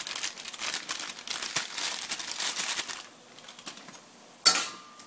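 Kitchen handling sounds as dried currants go into a pan of cooking ground turkey: rapid crackly clicking for about three seconds, then one sharp metallic clank with a short ring about four and a half seconds in.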